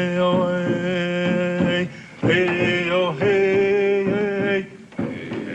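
Male voices chanting without words in long held notes, phrase after phrase with brief pauses between.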